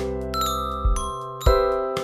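Background music of struck, bell-like notes, a new one sounding about every half second and each ringing away.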